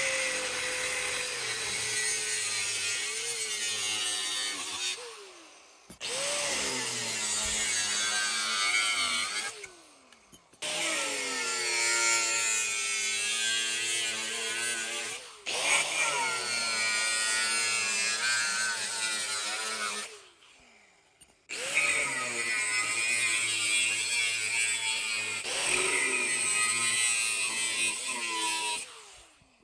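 Angle grinder with a cut-off disc slicing through steel tubing, in about five separate cuts with short breaks between them. In each cut the motor whine rises, sags in pitch as the disc bites into the steel over a harsh grinding hiss, then falls away as it spins down.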